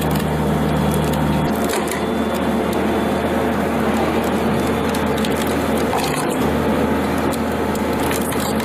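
A 50-ton Pezzolato firewood processor running and splitting hardwood logs, its engine and hydraulics giving a steady low hum under the noise of the wood. The low engine note shifts about a second and a half in.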